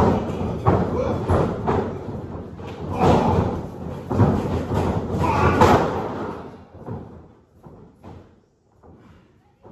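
Pro wrestlers training in a ring: feet stomping and bodies thudding on the ring canvas in a run of heavy thuds. The thuds stop about two-thirds of the way through, leaving only faint knocks.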